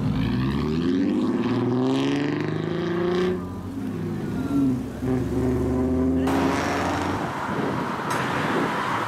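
Car engines and exhausts as lowered cars drive past one after another. One engine revs up as its car pulls away over the first three seconds, another vehicle passes with a steadier engine note, and from about six seconds in a louder, rougher exhaust comes in as the next car drives up.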